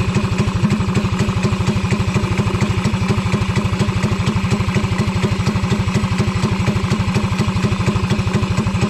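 Small Briggs and Stratton kart engine idling steadily, with rapid, even firing pulses that hold the same pace throughout.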